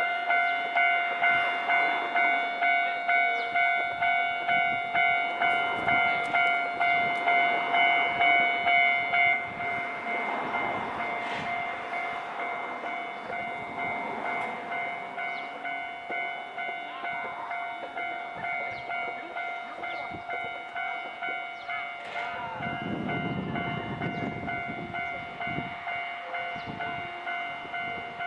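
Railway level-crossing warning bell ringing, an electronic ding repeating about one and a half times a second. About nine seconds in it drops to a quieter level and keeps ringing. A little after twenty seconds a low rumble of a passing electric train joins it briefly.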